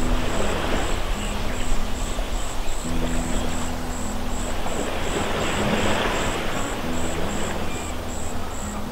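Background music with held low notes and a steady high tick about three times a second, over the rush of waves breaking against a seawall and wind.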